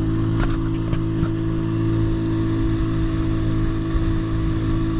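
An engine running at a steady, unchanging speed, with a few light knocks in the first second or so.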